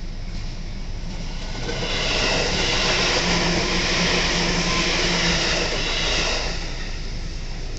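Senseki Line train passing close by at a level crossing: the rumble and wheel noise swell about two seconds in, hold for some four seconds, then fall away.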